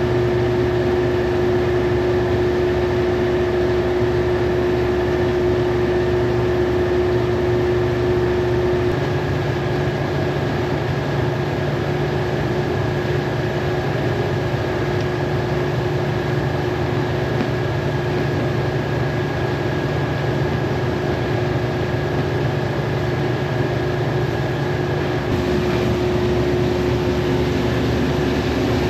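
A steady machine hum with a constant tone, its character changing abruptly about nine seconds in and again near the end.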